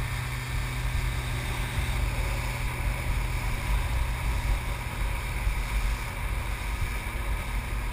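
Fast rescue boat running at speed: a steady engine drone under water rushing and spraying along the hull, with wind buffeting the microphone.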